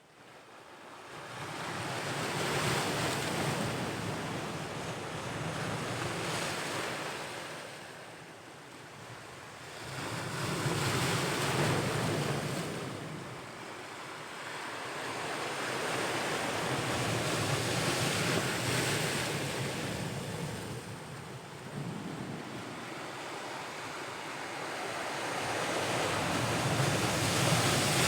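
Ocean waves breaking and washing up the shore. The surf swells and fades in slow surges, about four times.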